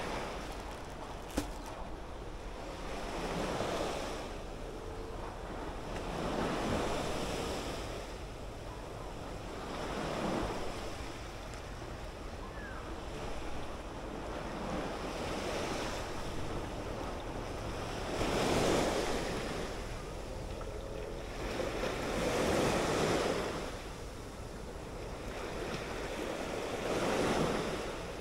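Small sea waves washing onto the shore, a surge of noise that swells and fades every few seconds, over a steady hiss of surf. There is a single sharp click just over a second in.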